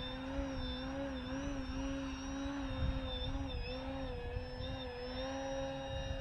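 Electric RC plane's brushless motor (Sunnysky 3120-880kv on a 12x6 propeller) whining in flight, one steady tone that wavers gently up and down in pitch, with a low rumble underneath.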